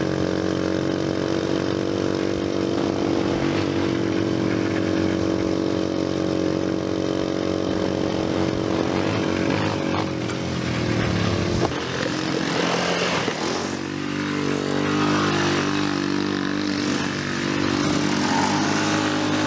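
Four-wheeler (ATV) engine running steadily, its pitch shifting and gliding about two-thirds of the way through as the throttle changes, then settling again.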